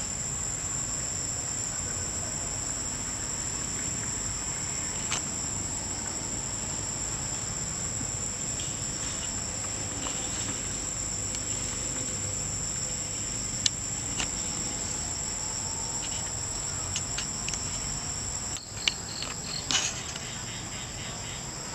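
Steady, high-pitched chorus of forest insects in the trees, with a few short sharp clicks scattered through it and a small cluster of louder clicks near the end.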